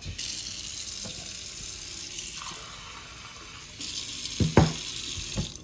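Kitchen tap running into a stainless steel sink, the stream splashing on the metal around the drain strainer. A few sharp knocks come near the end, the loudest about four and a half seconds in.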